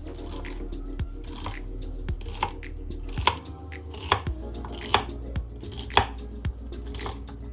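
Knife chopping through food on a cutting board in sharp, irregular strokes, roughly one a second, over soft background music.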